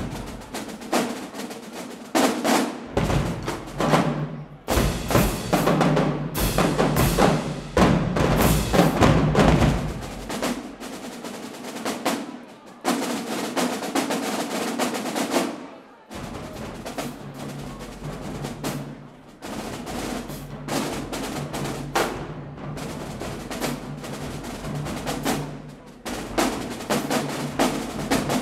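Marching drumline playing: snare drums, tenor drums, pitched bass drums and crash cymbals in fast, tightly rhythmic patterns. Several brief breaks punctuate the playing, and in the later part the bass drums play a repeated low pattern.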